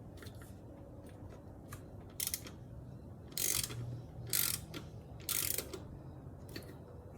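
Hand ratchet wrench turning intake manifold bolts in short strokes: about eight bursts of ratcheting clicks, each under half a second, as the bolts are run up snug before torquing.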